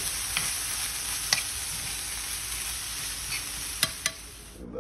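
Ground meat and chopped bell peppers sizzling in a stainless steel skillet as a utensil stirs them, with a few sharp clicks of the utensil against the pan. The sizzle cuts off abruptly near the end.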